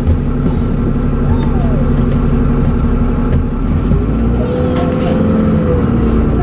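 Dennis Trident double-decker bus engine running steadily under way, with a turbocharger whistle that comes in about two thirds of the way through and holds for a second or so.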